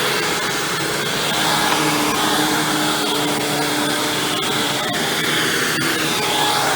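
Hoover Windtunnel Supreme upright vacuum running steadily, its motor hum wavering in tone, with a few sharp ticks about four to six seconds in.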